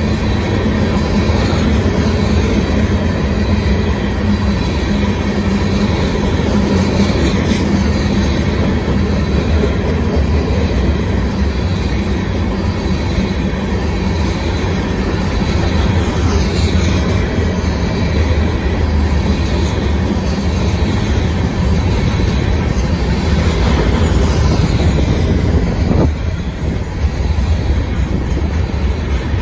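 Aggregate gondola cars of a freight rock train rolling past: a steady low rumble of steel wheels on rail, with faint high wheel squeals now and then.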